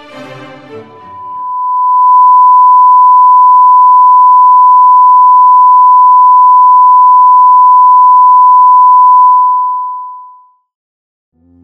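Colour-bar test tone: one pure, steady beep that fades in about a second in, holds loud, and fades out shortly before the end.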